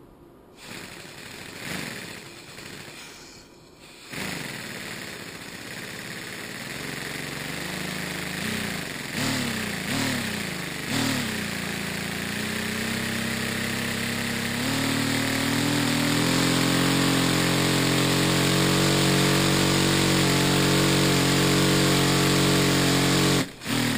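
Homemade plexiglass V8 compressed-air engine with brass cylinders and aluminium pistons, running and picking up speed as the air pressure is raised. Its pitch dips and rises a few times, then it settles from about halfway into steady fast running at around 30 to 40 PSI. The sound cuts out for an instant just before the end.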